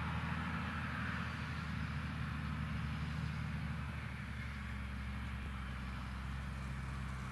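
Fendt 936 Vario tractor's six-cylinder diesel running steadily as it pulls a slurry tanker with a trailing-hose boom while spreading, with a hiss over the engine hum. The engine note shifts slightly about halfway through.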